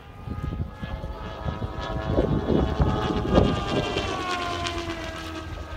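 TDR II radio-controlled speed model plane making a high-speed pass: its high whine comes in about a second in, grows louder, then drops in pitch as it goes by about four seconds in. Wind rumbles on the microphone throughout.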